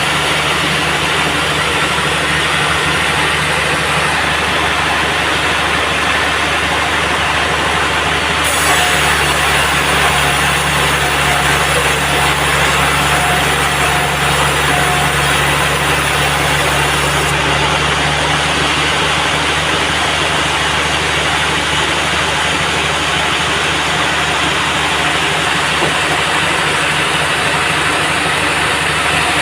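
Band sawmill machinery running with a steady mechanical drone. From about eight seconds in to about seventeen seconds, a brighter hiss rides on top.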